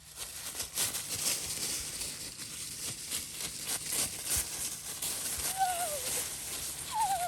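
Irregular rustling and crunching of movement through dry grass, with a short wavering high-pitched sound near the end.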